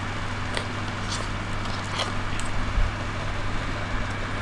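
A steady low machine hum, with a few soft clicks and rustles as the smartwatch is lifted out of its plastic tray and cardboard box.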